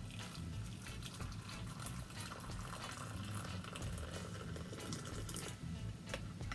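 Hot water pouring steadily from a glass electric kettle into a ceramic teacup of instant coffee.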